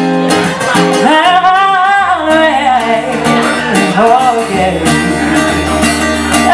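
Live acoustic guitar strummed with a woman singing into a microphone; her voice comes in about a second in.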